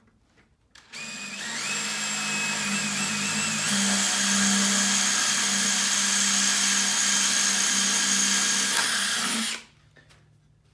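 Power drill fitted with a 7/32-inch bit drilling the hole for the screw that fastens the post to its post base. It spins up about a second in, rising in pitch, runs steadily for about eight seconds, then stops.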